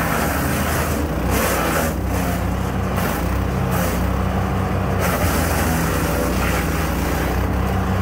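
A 15 hp wood chipper running with its engine held steady, with several surges of harsher noise lasting about a second each as branches are fed in and chipped.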